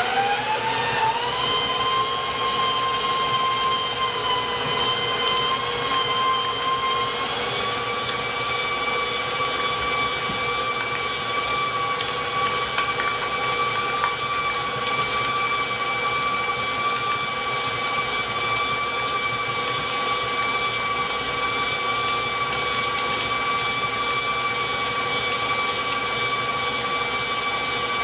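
Electric stand mixer running at speed with a loud, steady motor whine as its flat beater creams butter. The pitch climbs at the start as the mixer is sped up, steps up again about seven seconds in, then holds steady. The chef calls it very noisy.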